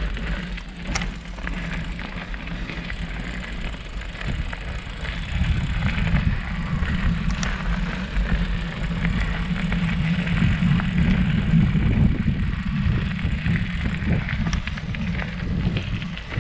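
Mountain bike rolling over a dirt forest trail, picked up through a handlebar-mounted camera: a continuous rumble of tyres and rattling frame, with a few sharp clicks. It grows louder and rougher from about five seconds in.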